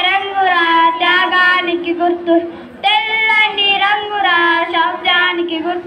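Young girls singing a song together into a microphone, in long held phrases with a brief breath about three seconds in.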